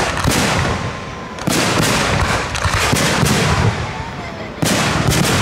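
Aerial firework shells bursting in a display, each sudden bang followed by a long rumbling, crackling tail. A fresh burst comes about a second and a half in and another near the end.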